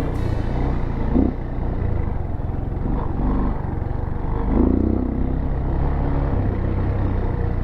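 Off-road motorcycle engine running under the rider on a trail, its low rumble steady, with the revs rising briefly a few times as the throttle is worked.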